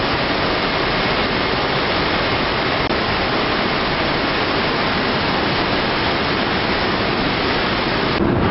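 Steady, loud rushing of water streaming over wet machinery, with no distinct knocks or rhythm. Near the end it gives way to a lower hum.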